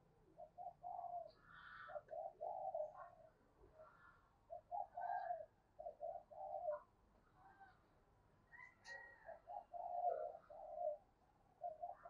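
Female spotted dove cooing in short repeated phrases of low coos, the call used to excite and draw in male doves. A few faint higher chirps sound between the phrases.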